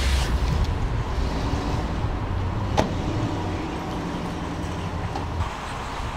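Steady low car rumble in a parking lot, with one sharp knock about three seconds in: the car's door being shut.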